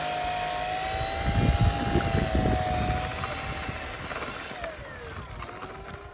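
Electric motor and propeller of a radio-controlled Cessna 182 model running on the ground: a steady high whine that slows and drops in pitch about four and a half seconds in. A low rumble of wind on the microphone between about one and three seconds in.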